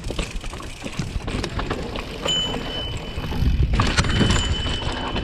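Mountain bike rolling down a rough dirt trail: a low rumble of tyres over the ground with clicks and rattles, getting louder about three and a half seconds in, and a thin steady high tone in two stretches.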